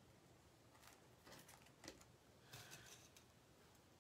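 Near silence, with a few faint clicks and rustles of zip ties being threaded through the holes of a wreath board by hand.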